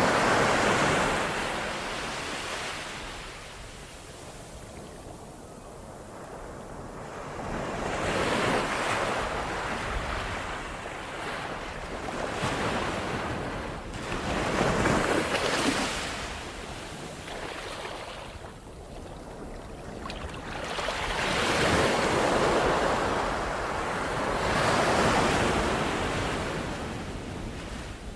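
Ocean surf: waves breaking and washing ashore, swelling and fading every few seconds.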